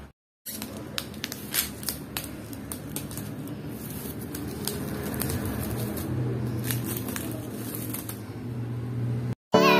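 Plastic wrapping on a strapped clothing bale crinkling and crackling as a hand handles it, with scattered sharp clicks. A low steady hum joins about six seconds in.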